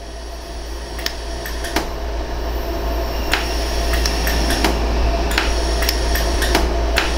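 A 100-joule LaserStar pulsed laser welder fires single pulses, each a sharp click, at uneven intervals of about a second or less. It is building up filler wire on a worn ring prong. Under the clicks runs a steady low hum that grows louder.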